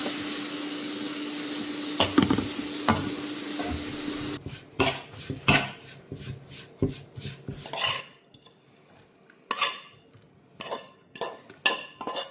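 Food sizzling in a pan with a steady hiss that cuts off about four seconds in. A metal spoon then clanks and scrapes against the pan in separate strokes while the beef salad is stirred and tossed.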